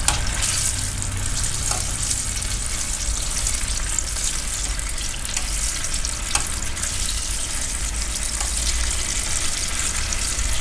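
Tempura-battered banana pieces deep-frying in a pot of hot oil: a steady sizzle, with a few faint clicks as metal tongs move the pieces.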